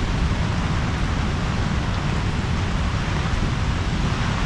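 Steady noise of a tropical storm's wind and rain, with a heavy low rumble.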